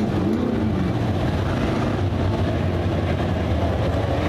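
Dirt late model race cars' V8 engines running hard around a dirt oval, a loud steady drone of several cars at once, with one car coming through the turn close by.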